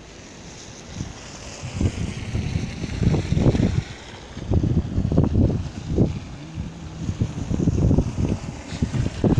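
Wind buffeting a phone microphone in irregular gusts. In the first few seconds a passing car's tyres hiss on the slushy road, fading away.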